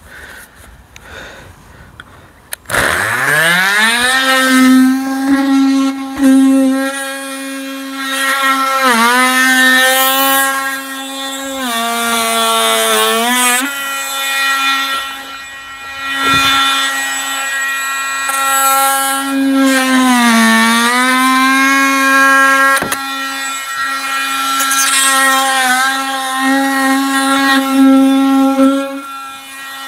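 Cordless Milwaukee oscillating multi-tool cutting through the windscreen's polyurethane adhesive. It starts about three seconds in, quickly winds up to a steady high hum, and its pitch sags now and then as the blade loads up in the glue. It stops near the end.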